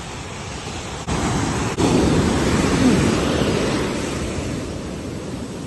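Ocean waves breaking on a beach: a steady rush of surf that swells louder about two seconds in, then slowly washes back down.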